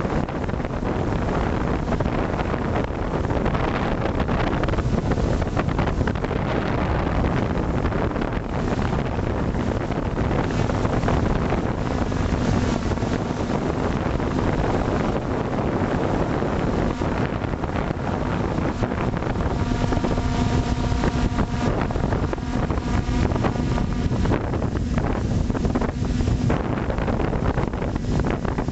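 Multirotor drone's motors and propellers running while it hovers, heard through the camera on board, with wind buffeting the microphone. A steady motor hum comes through more clearly at times, around the middle and again about two-thirds of the way in.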